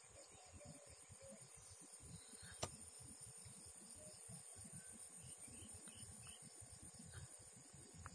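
Faint, steady high-pitched trill of insects in the background, over a low fluttering rumble, with a single sharp click about two and a half seconds in.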